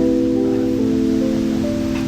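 Background music: soft sustained chords that shift every second or so.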